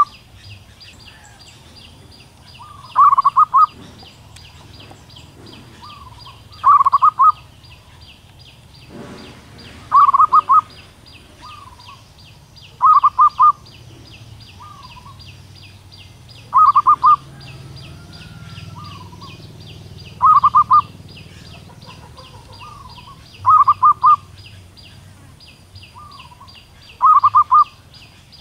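Zebra dove cooing: each call is a soft lead-in note and then a quick burst of trilled coos, repeated eight times, about every three and a half seconds. The uploader calls it a female's call to a male. Behind it runs a fast, high, steady ticking chirp.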